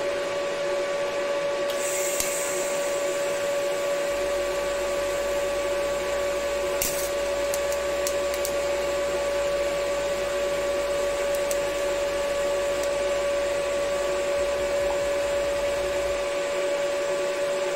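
TIG welding a steel tube bracket. The arc burns from a couple of seconds in until about two seconds before the end while filler rod is fed in, over a steady high whine. The arc is welding poorly, and the welder blames a tungsten electrode that needs regrinding.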